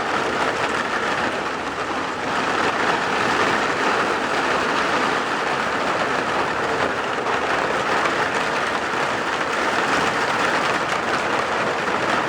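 Heavy rain of big drops falling steadily, a dense hiss of spattering drops that grows a little louder about two seconds in.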